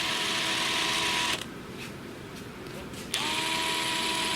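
DeWalt DCF899B 20V brushless 1/2-inch cordless impact wrench running free with no load, a steady motor whine on its lowest speed setting. The whine stops about a second and a half in. About three seconds in the trigger is pulled again, and the tool spins up with a short rise in pitch into a steady whine.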